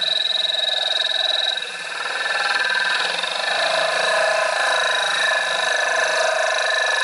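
Corded electric drill running steadily as it bores a hole through the glass panel of an aquarium, the bit cooled with poured water: a steady high whine with a brief dip about two seconds in.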